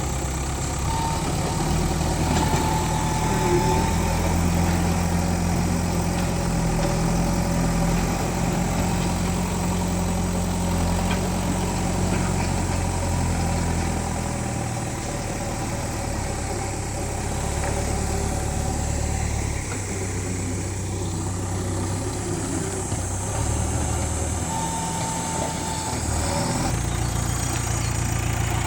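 A large diesel engine runs steadily, with its low note shifting in pitch and strength a few times.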